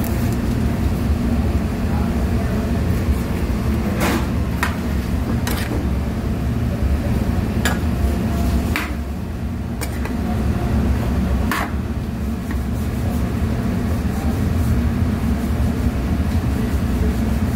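Metal spatula scraping and knocking against a pan while squid and vegetables are stir-fried: several sharp, separate scrapes in the middle part. Throughout there is a steady low hum.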